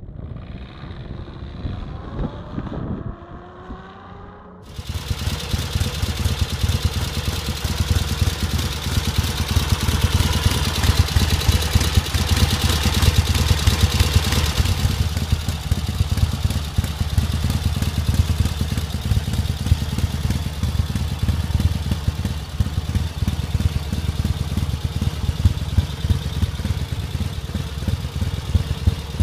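A motorcycle engine running, its pitch falling as the bike goes past, then an abrupt change about five seconds in to a Ural Dnepr K750 sidecar motorcycle's flat-twin engine running steadily at idle, swelling a little in the middle.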